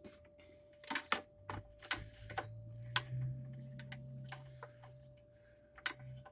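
A string of sharp, irregular clicks and taps from a lawn mower's oil dipstick being pulled, wiped with a rag and pushed back into its fill tube to check the oil level. A low hum rises about a second and a half in and fades out near five seconds.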